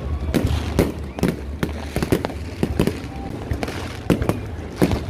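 Fireworks going off: an irregular run of sharp bangs and cracks, about two or three a second, over a steady low rumble.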